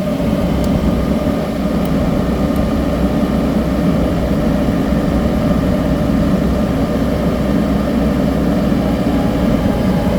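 Leeboy 8520 asphalt paver's engine running steadily.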